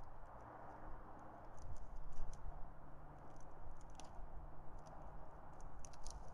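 Dry nest sticks and grass crackling as two bald eagles poke at the nest bowl: small clusters of quick, sharp clicks, four times, over a steady outdoor hiss.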